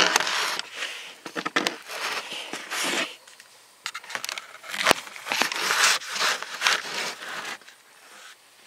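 Camera being handled close to its microphone and set in place: bursts of rustling and crinkling with scattered sharp clicks, which die down shortly before the end.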